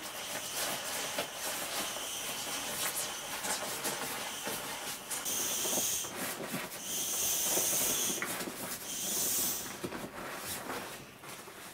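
Air hissing out of the open valve of a Mountain Warehouse self-inflating sleeping mat as it is rolled up tight and pressed down, pushing the air out, coming in three stronger surges in the second half. Under it, the mat's nylon shell rustles against the hands and bedding.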